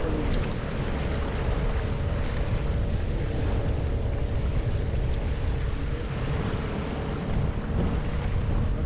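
Mercury 8HP two-stroke outboard motor running at a steady pitch, pushing an inflatable boat along.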